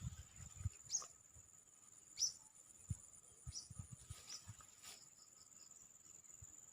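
Faint, steady high-pitched insect chirring, with a few short falling chirps in the first five seconds and scattered soft low knocks.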